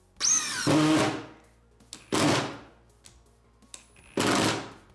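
Ryobi P238 brushless 18-volt impact driver in third gear driving a 3-inch sheetrock screw, in three trigger bursts: one of about a second with a falling whine, then two shorter ones about two seconds apart.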